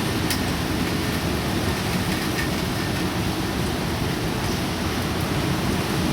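Typhoon rain and wind: a steady rushing noise with a heavy low rumble, without a break.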